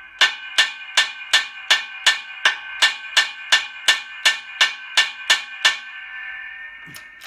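Steady hammer blows on a lorry's front hub and brake drum assembly held under load in a hydraulic press, about three a second, some sixteen strikes, to shock the hub out of the drum. The drum rings after each blow, and the ring fades over a second or so after the last strike.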